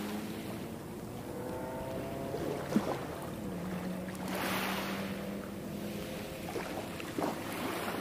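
A ship's engine droning steadily across the water, a low hum with a fainter higher whine that rises slightly, over the wash of waves on the shore.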